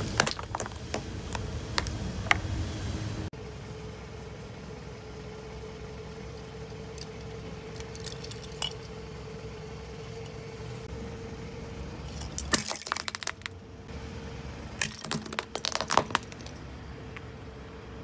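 Car tyre rolling over and crushing hard plastic: a rumble with sharp cracks and pops as a small plastic bottle gives way in the first three seconds, then a steady hum, and near the end two clusters of sharp snapping and crunching as a plastic toy spider breaks apart under the tyre.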